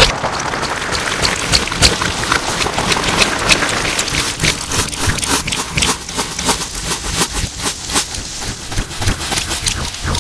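Slime being squished and worked by hand, a dense run of sticky clicks and pops, heavily distorted.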